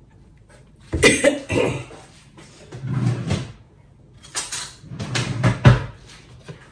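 A kitchen cupboard being opened and things being handled and set down, in three bursts of clatter, about a second in, around three seconds and from about four and a half seconds, ending with a sharp knock.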